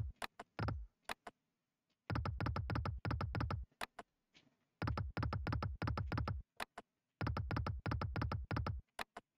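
Online slot machine game's electronic reel-spin sound effect: three runs of rapid, even ticking, each about a second and a half long, as the reels spin, with a few single clicks as they stop.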